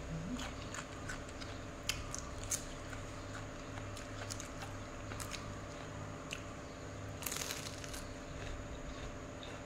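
Close-up mouth sounds of eating by hand: biting and chewing crisp raw vegetables and rice noodles, with scattered crunches and a longer crunchy stretch near the end. A steady low hum runs underneath.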